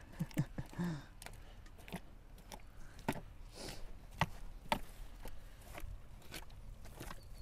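An animal gnawing on a bone: irregular sharp cracks and crunches, about two a second.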